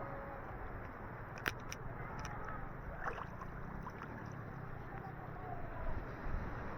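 Ocean surf washing and sloshing on a beach, a steady rush of water, with a few sharp clicks about a second and a half in.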